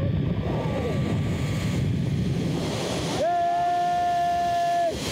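Wind rushing over the camera microphone during a zip-line ride, a steady rush of noise. Near the end the rider lets out a long held shout lasting nearly two seconds.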